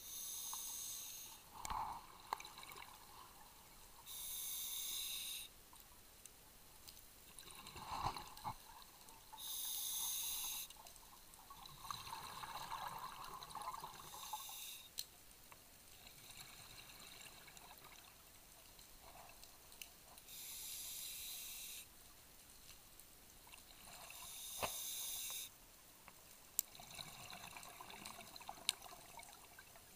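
Scuba diver breathing through a regulator underwater: a rush of exhaled bubbles lasting about a second, every few seconds, with quieter hissing inhalations between them.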